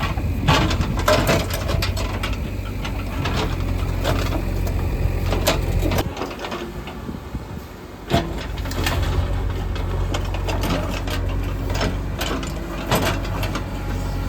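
Diesel engine of heavy construction machinery running steadily, with scattered knocks and clanks. Midway the engine sound drops away for about two seconds, then comes back with a sharp knock.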